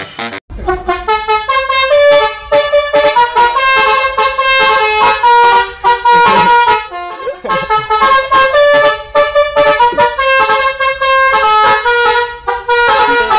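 Bus telolet horn, the multi-trumpet electric "basuri" horn, playing a melody of short and held notes, starting about half a second in.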